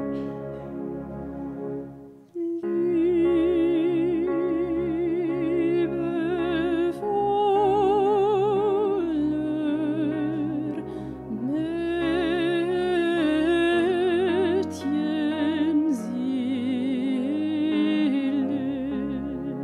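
A solo voice sings a slow, sustained melody with heavy vibrato over held keyboard accompaniment. The music pauses briefly about two seconds in, then resumes.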